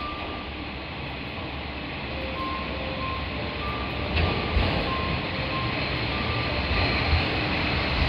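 KiHa 47 diesel railcar train rolling in, its engine and wheel rumble growing steadily louder as it draws near, with a few short clunks from about four seconds in. A high electronic beeping sounds on and off behind it.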